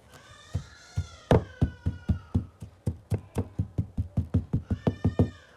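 A fast series of sharp knocks that speeds up to about six a second, with a faint high tone that bends in pitch near the start and again near the end.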